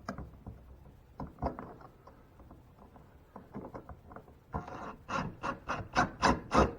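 Screwdriver driving a screw into a metal outlet box cover: scattered light clicks and handling, then from about halfway in a rapid series of short rasping strokes, about four a second, as the screw is turned home.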